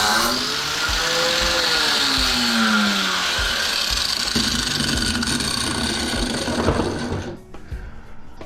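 A power tool running hard on aluminium scrap, its motor pitch rising and then sagging in the first few seconds, until it stops about seven seconds in, followed by a few light knocks.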